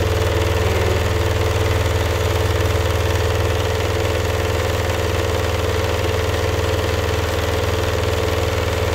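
Electric sewing machine running at a steady speed, stitching a long straight seam through two layers of fabric.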